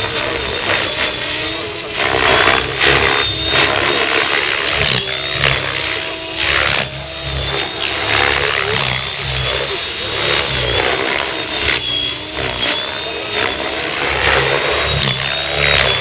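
Electric Mikado Logo 600 SE RC helicopter flying hard 3D aerobatics: a high motor and gear whine that wavers in pitch, with repeated loud rotor-blade whooshes as the blades load up in the manoeuvres.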